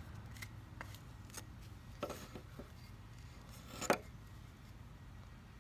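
A knife carving into a wooden spoon blank: a few short scraping cuts in the wood, the sharpest about four seconds in.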